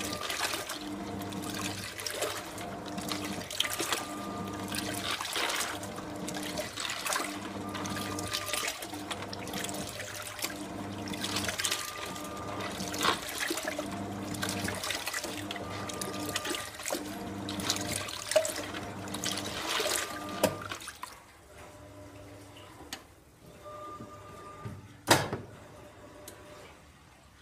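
1989 Sanyo coin-operated compact washing machine rinsing: the motor hums and churns the water back and forth, reversing every couple of seconds. The churning stops about twenty seconds in, and one sharp click follows a few seconds later.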